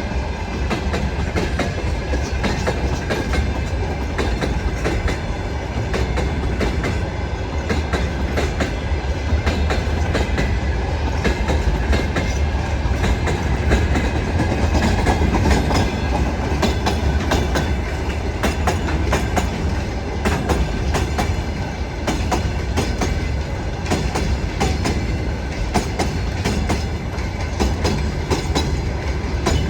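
Freight train wagon wheels knocking steadily over rail joints as a train hauled by a VL80S electric locomotive runs past, over a continuous low rumble.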